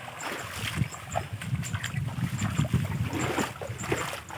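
Water sloshing and splashing, with scattered rustles and knocks, as people wade and work through flooded water hyacinth; a faint high ticking repeats a few times a second.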